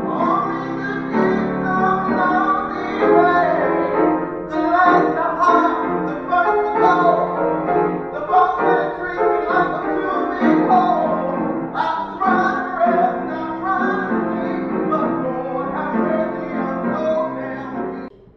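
A man singing a blues song over piano accompaniment, cutting off suddenly near the end.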